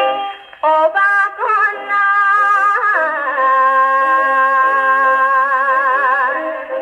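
A 1956 Japanese popular song playing from a 78 rpm record on a Columbia Model 116 Viva-tonal Grafonola wind-up phonograph. A woman sings a phrase with pitch slides, then holds one long note with vibrato from about three seconds in until near the end.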